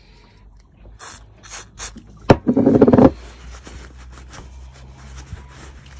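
A corroded starter-wire ring terminal being handled and rubbed clean with a paper towel: light rubbing and scraping of paper and wire, with a sharp click a little over two seconds in followed by a brief low hum.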